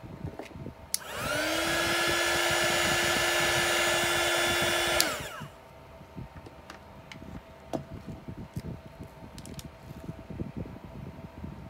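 Handheld electric hot-air blower switched on about a second in: its motor spins up to a steady whine, runs about four seconds, then clicks off and winds down. Faint rustles and small knocks before and after.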